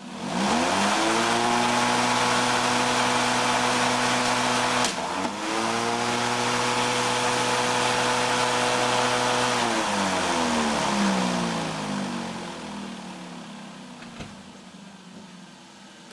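Corded electric lawnmower's motor and blade spinning up and running with a steady whine. About five seconds in, a sharp crack: the liquid nitrogen bottle hits the blade and shatters, and the motor dips briefly before recovering. About ten seconds in the power is cut and the pitch falls as the blade winds down.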